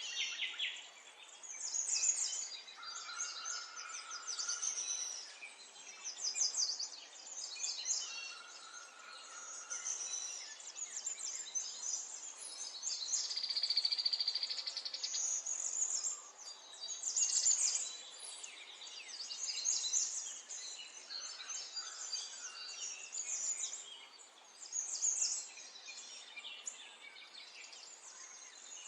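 Small songbirds chirping and twittering, several voices overlapping in quick high trills that come in bursts every second or two, with a lower held note twice in the first ten seconds.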